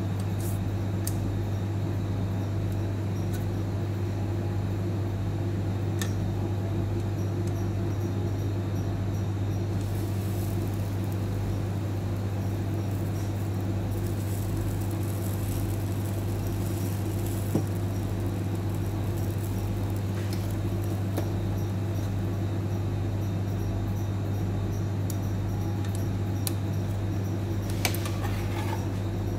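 Steady low electrical hum with a few faint clicks, one near the end.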